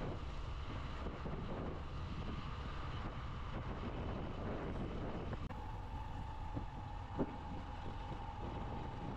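Low, steady wind rumble on the microphone of a moving motorcycle, with no clear engine note. A faint steady tone comes in about halfway through, and there is a single short knock a little after seven seconds in.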